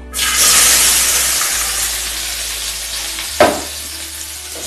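Chopped green tomatoes sizzling in hot oil in a kadai, the sizzle starting suddenly as the pieces drop in, loudest at first and then easing. A single sharp knock about three and a half seconds in.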